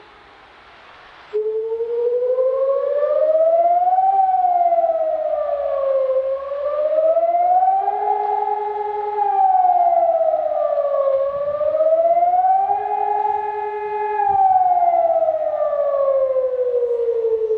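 Civil defence warning siren wailing, its pitch rising and falling in slow cycles of about four to five seconds, holding briefly at the top of the later rises. It cuts in abruptly about a second in, after a quieter moment.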